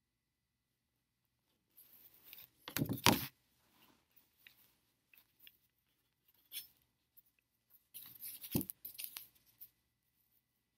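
Cardboard signs being handled and swapped close to the microphone: rustling and scraping of card in a few irregular bursts, loudest about three seconds in and again around eight to nine seconds.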